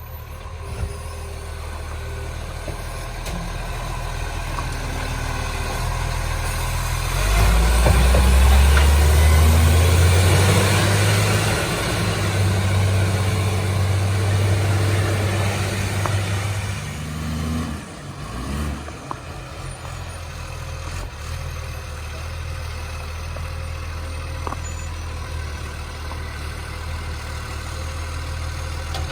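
Garbage truck's diesel engine idling, then revving up about a quarter of the way in and holding high revs for about ten seconds before dropping back to idle.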